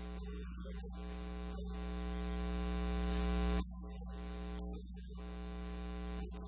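Electrical mains hum with a buzz. A buzzing tone swells for about two and a half seconds, then cuts off suddenly, and the low hum carries on.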